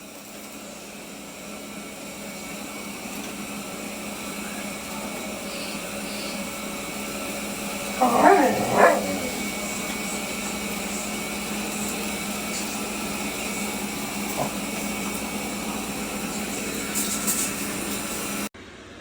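Dreame L10s Ultra robot vacuum running with a steady whirring hum and whine, growing louder over the first several seconds, then cutting off suddenly near the end. A dog barks twice about eight seconds in.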